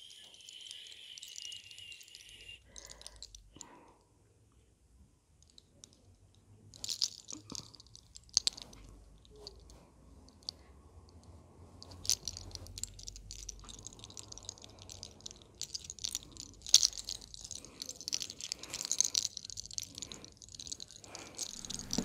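Fingers rubbing and scratching through hair and over the scalp during a head massage: a close, crackly rustle with scattered sharp clicks, sparse about a third of the way in and dense through the second half.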